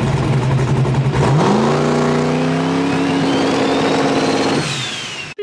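Turbocharged 5.3 LS V8 of a methanol Fox-body Mustang, heard from inside the cabin: it idles, then about a second in the revs rise and hold as the car pulls away. A turbo whistle climbs alongside, and near the end the throttle lifts, the engine note drops away and the whistle falls.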